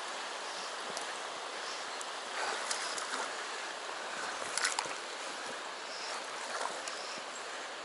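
Steady rush of a shallow stream's flowing water, with a couple of faint brief clicks near the middle.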